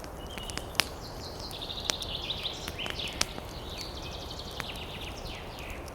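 Campfire crackling, with sharp pops every second or so over a steady low hiss, while a songbird sings quick repeated high chirps and trills.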